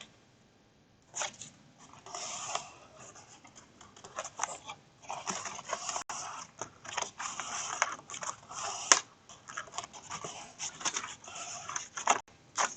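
Cardstock pieces being handled and pressed together by hand: a dense run of paper rustles, scrapes and small taps that starts about a second in.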